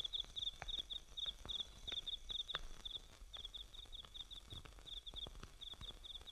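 Crickets chirping: a steady run of short high-pitched chirps, each of two or three quick pulses, about three a second, with faint scattered taps underneath.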